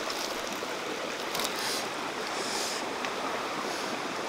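Steady rush of running stream water, with no other clear event standing out.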